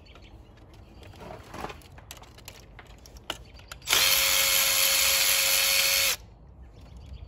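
Milwaukee M12 Fuel cordless electric ratchet spinning a bolt out with a triple-square bit, running at a steady pitch for about two seconds before stopping abruptly. Light clicks of tools and parts being handled come before it.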